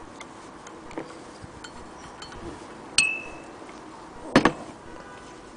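Metal clinks and knocks from handling the cast-iron hand crank wheel of a Willcox & Gibbs sewing machine: a sharp clink that rings briefly about halfway in, then a short clattering knock a moment later.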